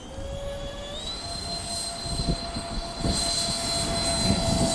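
Twin 70 mm electric ducted fans of an RC Boeing 737 MAX 8 model throttling up for the takeoff roll. Their high whine rises in pitch about a second in, then holds steady while the loudness keeps building, over a low rumble.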